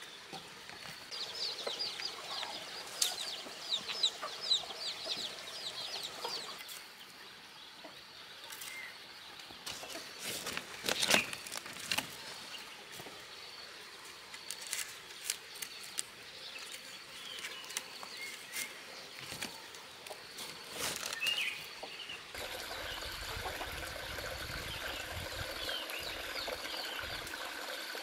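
Chickens clucking, with a run of quick high chirps for a few seconds near the start and scattered sharp knocks and rustles; after about 22 s this gives way to a steady outdoor hiss.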